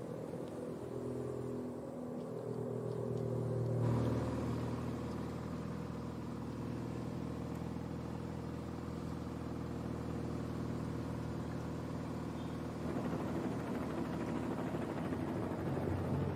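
Motor vehicle engine, likely the race's camera motorcycle running close to the riders, at a steady pitch. The engine sound changes abruptly about four seconds in.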